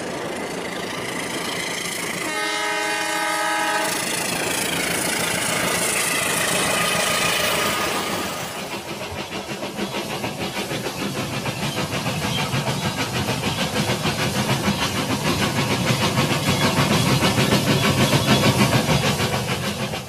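Battery-powered toy trains running on plastic track: a horn sounds about two seconds in, then a quick, even clatter sets in and runs on.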